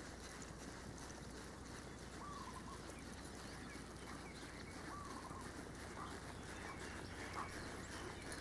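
A bird calling over faint outdoor background: a short call repeated about every two and a half seconds, with calls coming more often near the end.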